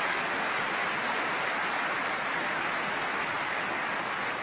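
Steady applause from an indoor arena crowd at a badminton match, an even wash of clapping that neither builds nor fades.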